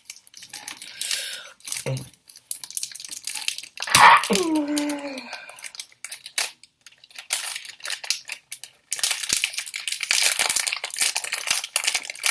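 Plastic packaging crinkling and tearing as a speedcube is unwrapped, with many small clicks and rustles. A short pitched sound falls in pitch about four seconds in. The crinkling grows denser and busier over the last few seconds.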